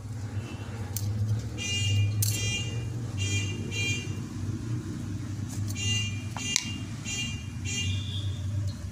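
Short high-pitched electronic beeps repeating about twice a second in two runs of four or so, over a steady low hum, with a few sharp clicks.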